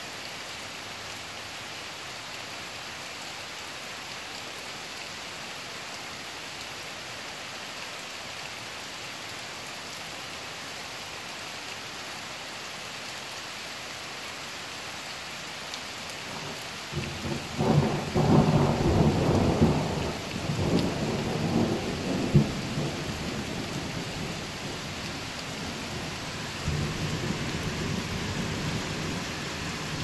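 Steady rain falling, then about seventeen seconds in a loud rumbling roll of thunder that swells several times and dies away slowly, with a fainter rumble near the end.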